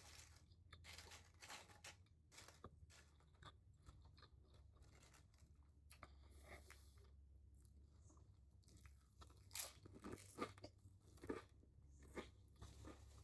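A person chewing food close to the microphone: faint, wet mouth clicks and soft crunches throughout, with a few louder crunchy bites near the end.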